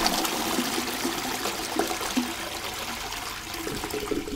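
Toilet flushing: a steady rush of running water that eases slightly toward the end.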